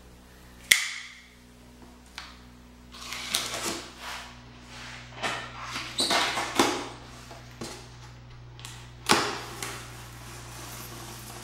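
A knife slitting the packing tape on a cardboard box and the cardboard flaps being pulled open: a series of short rasping scrapes and rips, with sharp clicks about a second in and again near the end.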